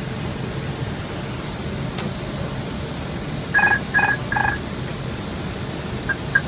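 Airbus A321 flight deck on final approach: a steady rumble of airflow and engines, with three short electronic beeps about halfway through and three fainter short pips near the end from the cockpit's alert system.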